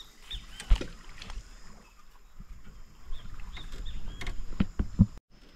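A few knocks and bumps of gear against a small fishing canoe's hull, one just under a second in and three in quick succession near the end, with faint short high chirps between them.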